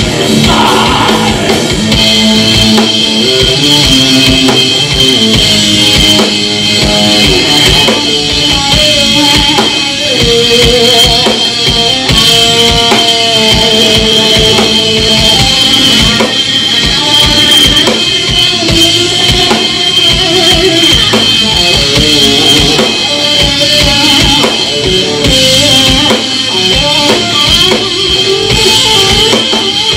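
Live rock band playing, with a drum kit keeping a steady beat under guitar.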